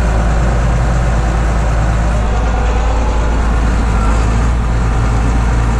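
John Deere 8520 tractor's diesel engine running steadily, a constant low hum, while its hydraulics slowly unfold the Swifter cultivator.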